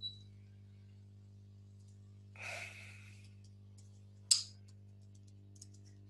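A short breath out about two and a half seconds in and a sharp computer-mouse click a little after four seconds, over a steady low electrical hum.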